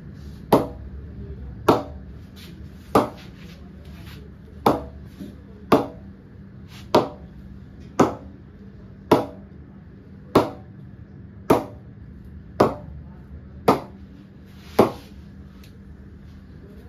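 Leather cricket ball bounced repeatedly on the face of a Kashmir willow cricket bat: thirteen sharp knocks, about one a second. It is a ping test of how well the willow rebounds the ball.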